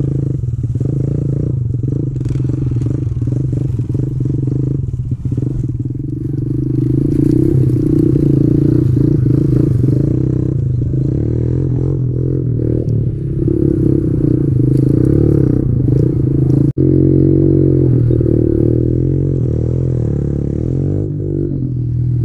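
Kawasaki KLX110 pit bike's single-cylinder four-stroke engine running under way, its pitch rising and falling with the throttle.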